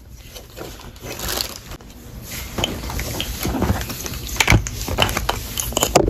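Rustling and irregular sharp clicks as an EFI throttle body's wiring harness and its plastic connectors are handled and pulled out, growing louder after about a second.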